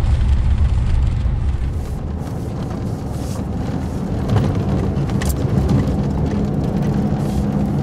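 Cab interior of a GM three-quarter-ton pickup driving on a bumpy dirt road in four-wheel drive: a steady low rumble of engine, drivetrain and tyres, with a couple of sharp knocks from the cab about four and a half and five seconds in.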